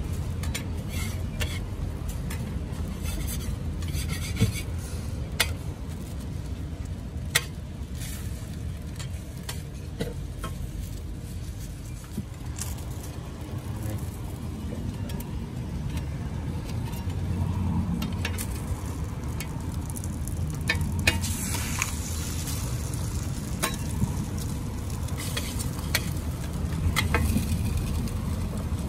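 Eggs and a burger patty frying on a steel flat-top griddle, sizzling, with scattered sharp clicks and scrapes of a metal spatula and egg ring against the plate, over a steady low rumble.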